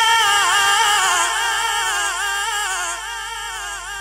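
Male voice holding one long sung note with a strong vibrato, unaccompanied, in a Punjabi naat; it fades slowly toward the end.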